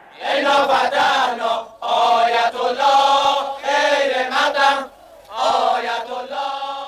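Crowd of demonstrators chanting a slogan in unison, three chanted phrases with short breaks between them.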